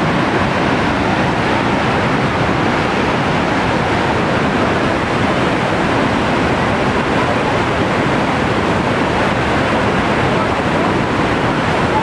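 The cascades of Iguazu Falls pouring into the gorge: a loud, steady rush of falling water.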